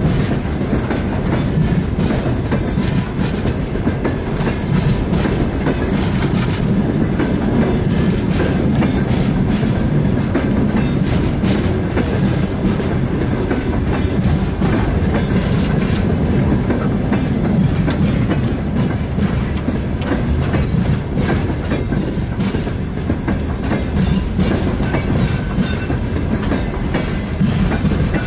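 TEM2U diesel shunting locomotive running steadily with a deep, even rumble, with frequent light clicks and knocks from the rails and running gear.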